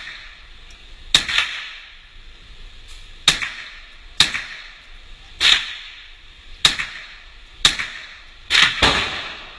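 Rifle fired repeatedly: about eight sharp shots at irregular intervals of roughly a second, the last two close together near the end.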